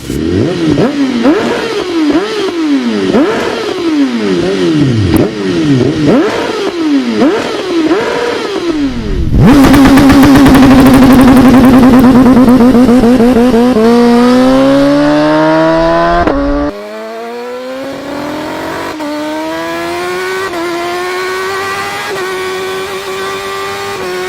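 BMW S1000RR HP4's inline-four engine revved repeatedly, its pitch swinging up and down with each throttle blip. Then it holds a loud, steady high-rev note, and then accelerates up through the gears, the pitch climbing and dropping back at each shift.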